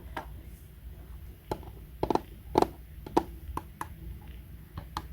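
A string of about a dozen irregular light clicks and taps of hard objects being handled, the loudest cluster a couple of seconds in.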